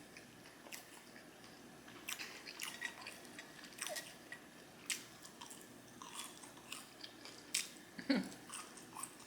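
Close-miked chewing: irregular wet mouth clicks and smacks of someone eating food, with a brief low hum about 8 seconds in.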